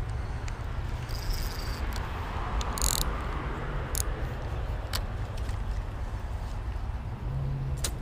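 Steady traffic noise from a nearby busy road, swelling as a car passes about two to three seconds in. A few sharp clicks and a brief hiss from the rod and spinning reel being handled ride over it.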